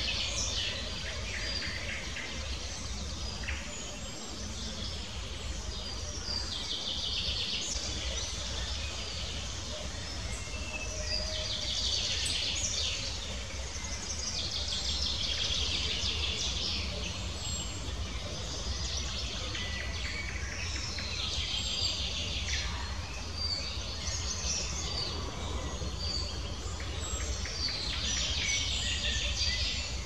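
Small songbirds singing in short, trilling phrases that come back every few seconds, with scattered single whistled notes between them. A steady low background rumble runs underneath.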